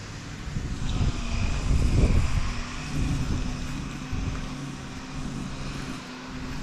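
An engine's steady low drone, a hum held on a few fixed low pitches, with a louder low rumble of noise about one to three seconds in.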